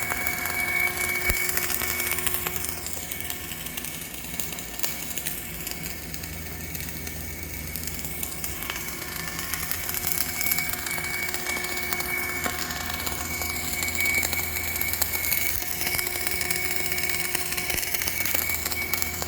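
Electric arc welding a straight bead: the arc crackles and hisses continuously, its loudness wavering, over a steady low hum and a faint steady high whine.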